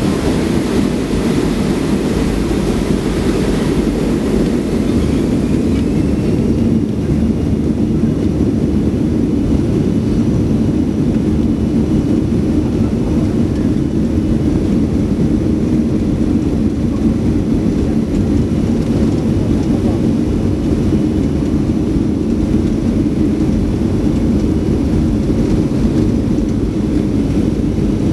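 Boeing 737-500's CFM56-3 jet engines running with a steady low rumble, heard from inside the cabin over the wing as the airliner rolls along the runway.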